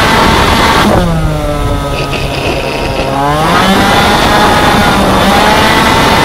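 Racing scooter's two-stroke engine under load. About a second in the engine note drops steadily as the throttle comes off. From about three and a half seconds it climbs back up and holds a high, steady note at speed.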